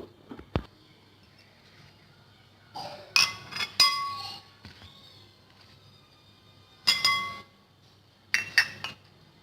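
Glassware clinking and knocking in a few short bursts with brief ringing, as a day's portion of the ground black seed and flaxseed mix is put into a small glass container.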